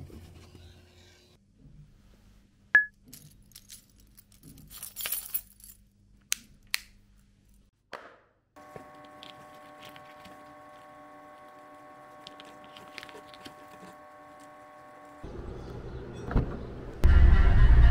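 Keys jangling and clinking with small handling clicks, then a steady hum with several held tones in the middle; music starts loudly near the end.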